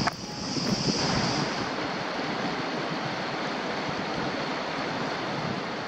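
Steady, even rushing noise of running water, with a high steady insect buzz that fades out in the first second and a half.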